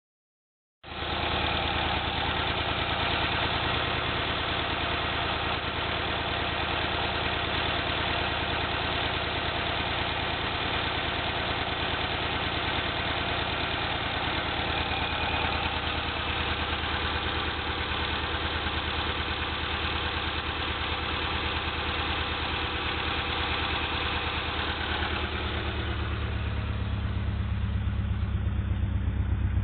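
1991 Honda Accord four-cylinder engine idling roughly, starting just under a second in. Near the end the sound grows louder and deeper. The owner suspects an ignition problem or a bad tank of gas behind the rough idle.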